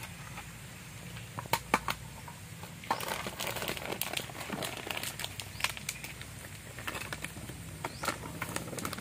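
Two sharp knocks of a stainless-steel bowl set down on a table, then from about three seconds in, the plastic packet of bánh xèo flour crinkling and rustling as it is handled and opened.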